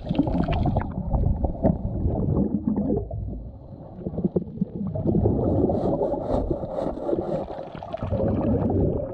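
Muffled underwater sound of bubbles from a scuba regulator and water gurgling, with many short clicks and knocks. It dips briefly about a third of the way in.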